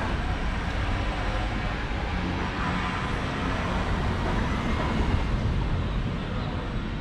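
City street ambience dominated by the steady low rumble of passing motor traffic, easing slightly toward the end.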